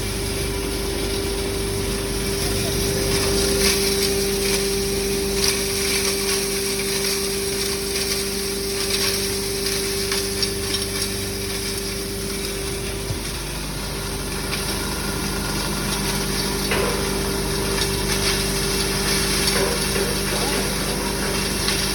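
Electric herb and chemical grinding machine running steadily, a constant motor hum with a steady whine, with scattered ticks and clatter throughout.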